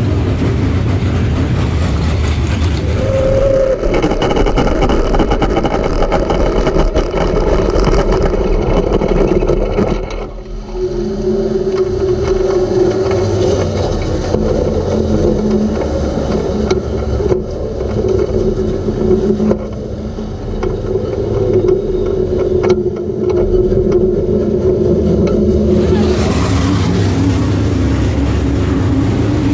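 Race car engine running hard at high revs, with a brief drop in the engine note about a third of the way in before it picks up again.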